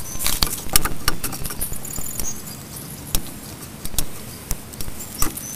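Irregular light clicks and small metal taps from drum-brake hardware being handled, with a brief faint ringing about two seconds in.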